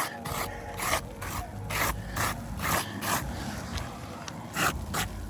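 Repeated wiping strokes scraping across asphalt roof shingles, about two a second with a pause near the middle, rubbing grit off the granule surface.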